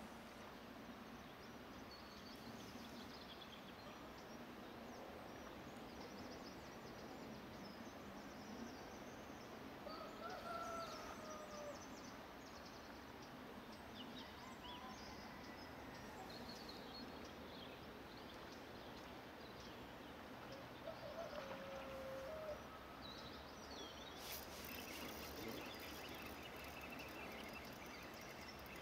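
Faint, quiet waterside ambience: a steady low hiss with scattered distant bird calls, two short calls standing out a third and three quarters of the way through. A brighter hiss sets in a few seconds before the end.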